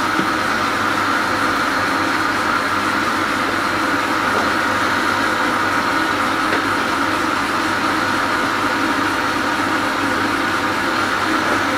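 Metal lathe running under a cut: the turning tool peeling a continuous curling chip off a slender metal bar held between centres. A steady, even machining whine with no change in level.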